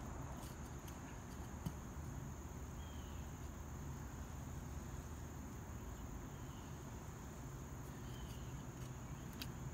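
Steady, faint, high-pitched insect chirring, with a low steady hum under it.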